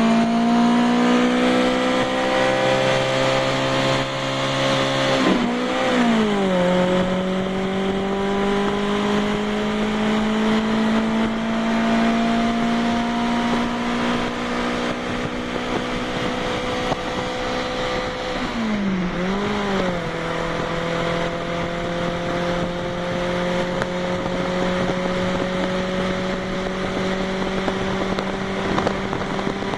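Fiat 128's four-cylinder engine pulling under load, its note climbing slowly in each gear. The pitch dips and settles lower twice, about five seconds in and again near twenty seconds, as gears are changed.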